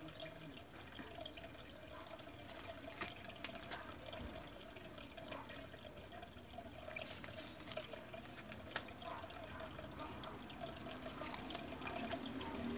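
Oracle cards being handled: scattered light clicks and soft rubbing of the cardstock and fingernails on cards, over a faint steady hum.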